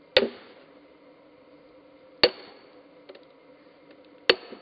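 Sledgehammer striking a steel splitting wedge three times, about two seconds apart, each blow a sharp metallic clang with a short ring, driving the wedge into an Osage orange fence post to split it.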